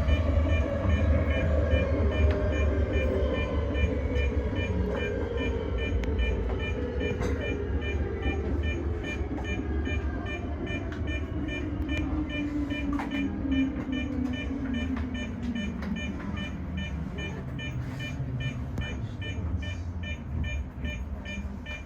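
Traction motors of a Tōyō Rapid Railway 2000 series electric train whining and falling steadily in pitch over the rumble of the wheels on the track: the train slowing as it brakes into a station.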